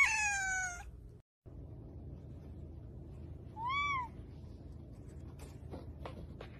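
A cat meows once, a falling call that ends under a second in; after a short gap, about four seconds in, a cat gives a short, clear mew that rises and falls. A few faint clicks follow near the end.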